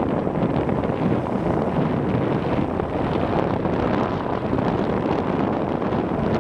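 Steady wind rush buffeting the microphone of a moving motorbike, mixed with the noise of the ride.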